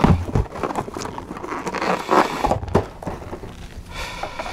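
Small round latex balloons being handled and tied together close to the microphone: irregular rubbing and rustling of latex with soft knocks.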